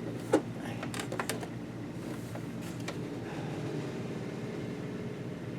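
Steady low hum with a few light clicks and knocks in the first three seconds, the loudest about a third of a second in: a screwdriver and a sewing machine's plastic casing being handled.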